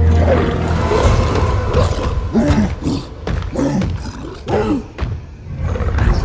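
Film sound design of giant apes: a deep rumble, then a run of short rising-and-falling animal calls with sharp thuds among them.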